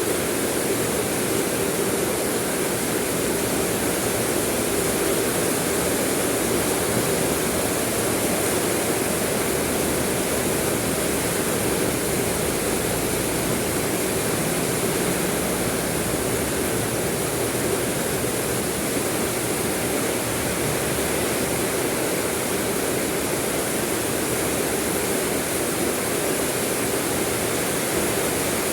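Steady rain falling, an even, unbroken hiss with no single drops or thunder standing out.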